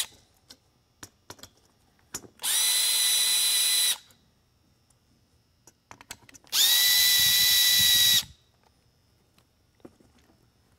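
Cordless drill-driver backing out the screws that hold a rotator beacon's motor assembly to its base. It runs in two bursts of about a second and a half each, every one a quick spin-up to a steady whine, with faint clicks of handling in between.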